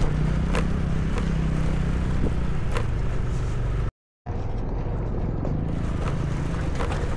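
Two-wheeler engine running steadily under way on a rough, rocky off-road track, with scattered knocks and rattles from the stony ground. The sound cuts out completely for a moment about four seconds in, then resumes.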